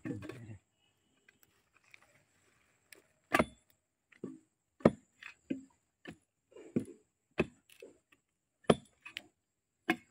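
Machete chopping into tree roots and soil at the base of a trunk. There is one strike at the start, then after a pause of about three seconds a run of about a dozen irregular strikes, roughly two a second.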